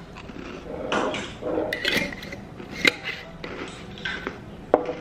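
A glass cookie jar and its lid being handled on a table: a few clinks and knocks with rustling between them, the sharpest knocks a little before three seconds and near the end.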